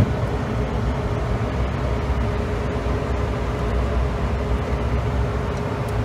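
Steady cockpit noise of a business jet on approach with the landing gear down: a constant rumble of airflow and engine with a faint steady hum. A brief click sounds at the very start.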